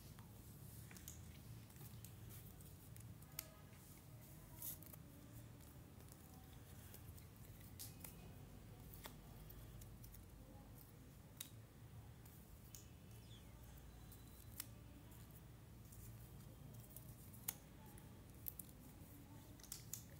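Faint, scattered clicks and taps of cardboard jigsaw puzzle pieces being handled and pressed together on a hard floor, irregular and a few seconds apart, the sharpest near the end, over a low steady hum.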